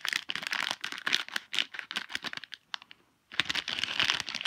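Crinkling and tearing of a toy blind-bag wrapper being opened by hand, in two stretches with a short pause a little after halfway.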